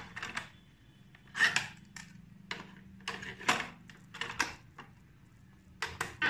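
Sharp mechanical clicks and clunks of a Sony portable radio-cassette player being handled: its piano-key buttons pressed and the cassette door opened and snapped shut, about a dozen separate clicks, with the loudest knocks about a second and a half and three and a half seconds in.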